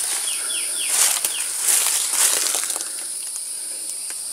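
A bird calls three quick falling notes just after the start, over a steady high-pitched insect drone. Rustling and crunching of footsteps in dry leaves and brush come about one and two seconds in.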